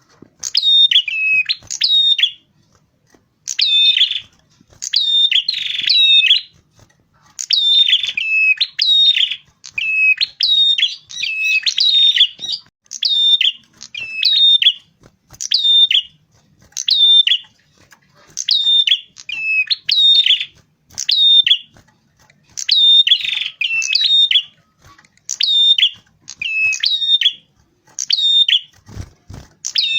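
A prenjak kepala merah, a small warbler, singing its loud chattering song as a recorded lure call. Short high phrases repeat about once a second, each stepping down in pitch. A low thump comes near the end.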